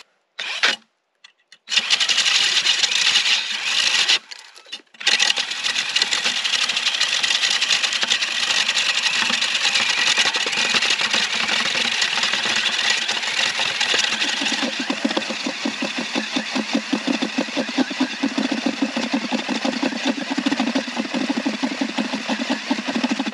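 Cordless drill spinning an ice auger into thick lake ice: two short bursts, then one long continuous run of motor and grinding ice, with a lower pulsing churn coming in a bit past halfway. The drill is under such heavy load that it overheats and smokes.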